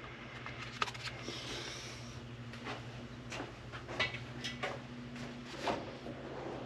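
Tools being handled and set down on a workbench: a scattered run of light clicks and knocks with a brief rustle, over a steady low hum.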